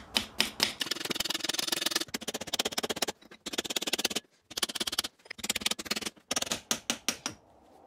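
Rapid rattling clicks in a string of bursts about a second long with short gaps between, from a tool working the fasteners that hold on a British Seagull outboard's pull-start assembly.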